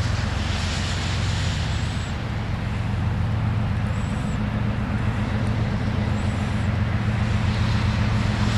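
Diesel-electric freight locomotives, led by a Union Pacific unit, running with a steady low engine hum as the train approaches at slow speed.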